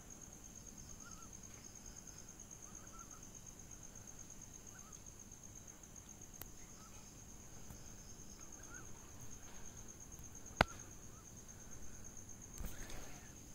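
Crickets trilling steadily in a high pitch, with faint short chirps every second or so. A single sharp click about three-quarters of the way through, and rustling steps begin near the end.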